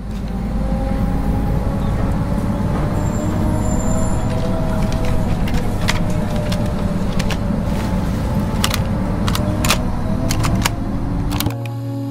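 Bus engine running, heard from inside the passenger cabin: a heavy low rumble with a faint whine that drifts up and down in pitch, and a scattering of sharp clicks and rattles. Music with held notes cuts in near the end.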